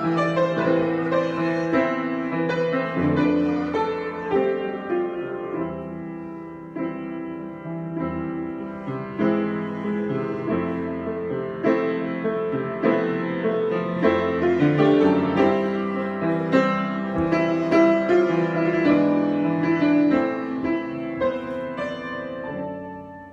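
Solo piano improvisation, many notes and chords at once. It eases off a little, builds again, and dies away near the end.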